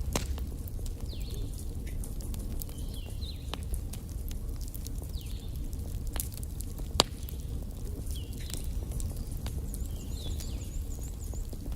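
Wood fire burning in a fireplace: scattered crackles and pops over a low steady rumble, with one louder pop about seven seconds in.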